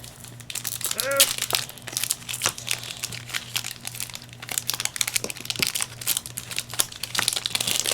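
Foil booster-pack wrapper crinkling and trading cards being handled, a continuous run of irregular crackles.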